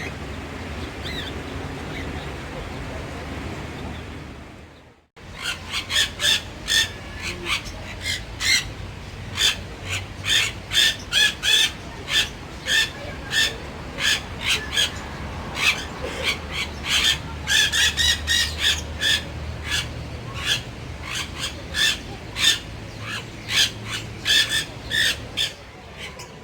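Captive birds calling in an aviary: after a brief cut, a long run of short, sharp calls repeating about twice a second, over a low background rumble.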